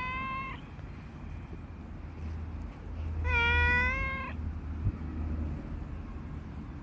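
Calico cat meowing: a short meow at the start, then a longer, louder meow about three seconds in.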